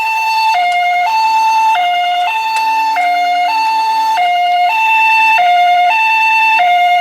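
Japanese ambulance two-tone "pi-po" siren, switching evenly between a high and a low note, a little over half a second each.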